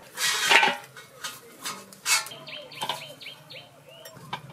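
A whole chicken being cut apart on an upright blade: a loud rough crunch at the start, then several sharp cracks as the joints are split. A small bird chirps a quick run of short, falling chirps in the middle.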